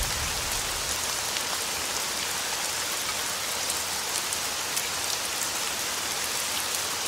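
Steady rain falling and dripping: an even hiss with scattered soft taps of drops.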